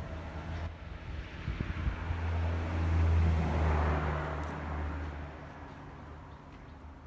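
A motor vehicle passing by: a low engine hum that grows louder to a peak about three seconds in, then fades away.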